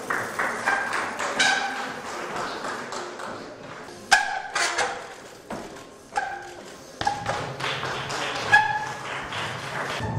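A trials bike hopping on stacked wooden pallets: about eight irregular thuds as the wheels land, several with a short metallic ping ringing after the impact.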